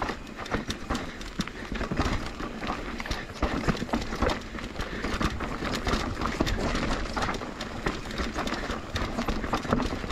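Downhill mountain bike rattling over rocks and roots at speed: a rapid, irregular string of knocks and clatter from the tyres and frame over a steady rushing noise.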